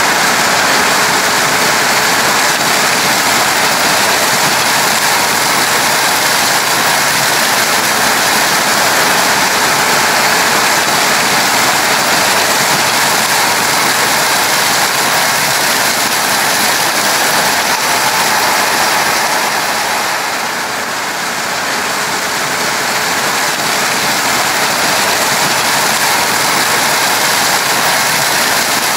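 Combine harvester working in corn: a loud, steady rushing mechanical din with no distinct beats, easing briefly about twenty seconds in.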